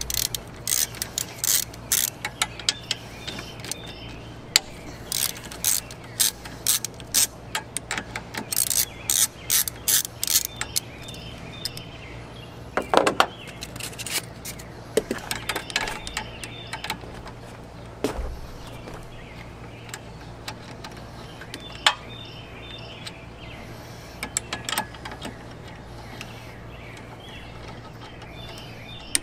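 Hand ratchet with a 13 mm socket clicking in quick runs as it loosens the bolt on the AC line fitting at the condenser. The clicking is dense through the first ten seconds or so, then thins to a few scattered clicks.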